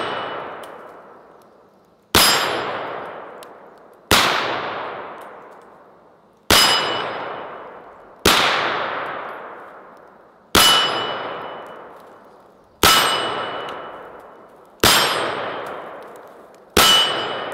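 Semi-automatic shots from an M1 carbine fired at a steady pace, about one every two seconds, eight in all. Each shot is followed by a metallic ring that fades over about two seconds: steel targets being struck.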